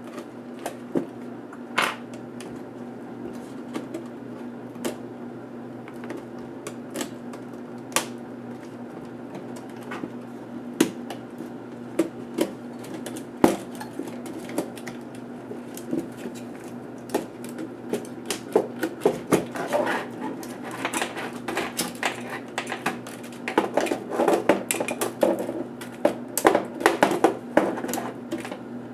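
Scattered clicks and taps of an HP ZE4600 laptop's plastic case and circuit board being handled as the motherboard is worked loose, becoming a busy run of clicks and rattles in the last ten seconds as the board is lifted out. A steady low hum runs underneath.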